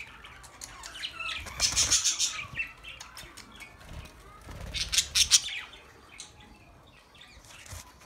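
A flock of budgerigars chattering and squawking, with two louder bursts of sharp calls about two and five seconds in.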